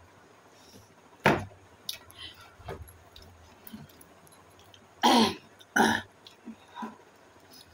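A few short coughs and throat-clearing sounds spaced apart; the loudest come as a pair about five and six seconds in.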